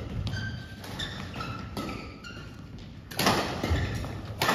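Badminton rally: sharp racket hits on the shuttlecock and thuds of feet on the court, with short squeaks from court shoes. The loudest hit comes about three seconds in.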